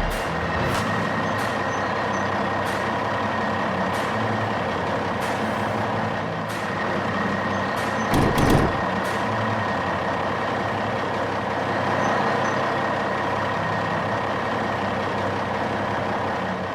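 Heavy truck engine sound effect running steadily, with several sharp knocks and a louder burst about eight seconds in.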